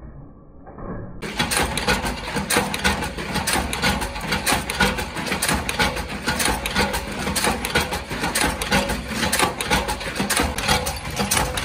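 Screw-shell forming press running, with a fast, steady metallic clatter of rapid clicks over a low rumble while screw shells for LED bulb holders are formed; it starts about a second in.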